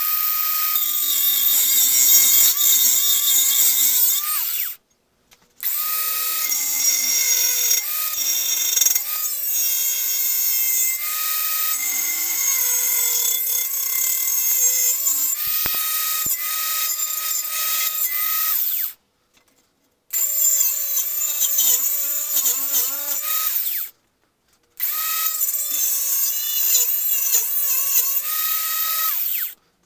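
Electric angle grinder with a cutoff wheel cutting through a sheet-steel electrical box lid. The motor whine wavers and dips as the wheel bites, over a harsh, hissing grind. It cuts off abruptly to silence a few times for under a second.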